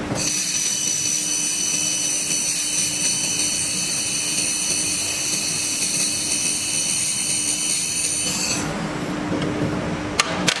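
1500 W handheld fiber laser welder running a weld on stainless steel: a steady high-pitched whine with hiss that stops about eight and a half seconds in, over a steady low hum. Two sharp clicks near the end.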